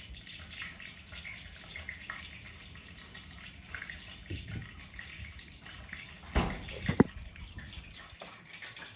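Shrimp frying in hot lard: a steady crackling sizzle. Two sharp knocks come a little over six seconds in, about half a second apart.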